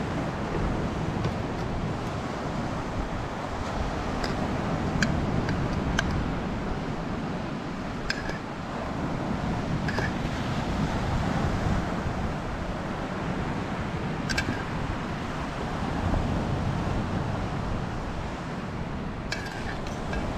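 Steady rush of wind and surf, with a metal utensil clinking a few times against a stainless-steel pot as noodles are lifted out.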